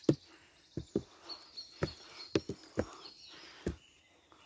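Footsteps of a hiker walking down a forest trail of wooden log steps and packed dirt, a dull thud roughly every half second, with birds chirping faintly in the background.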